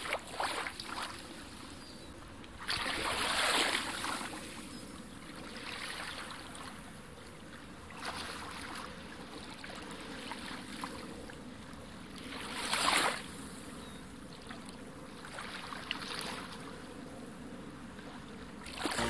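Rushing, water-like noise without any pitched sound, swelling and fading several times; loudest about three seconds in and again about thirteen seconds in.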